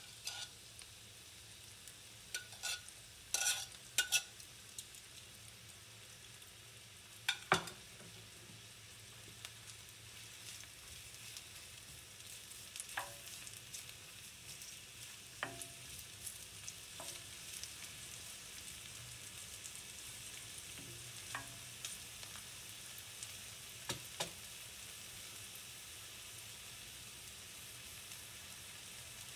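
Sliced onions sizzling gently in olive oil in an enamelled pan, the hiss building as the pan heats. A wooden spoon knocks and scrapes against the pan now and then as the onions are stirred.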